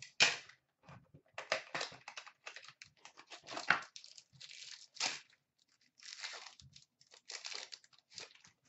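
Packs of hockey trading cards being torn open by hand: the wrappers tear and crinkle in irregular bursts, with short pauses between.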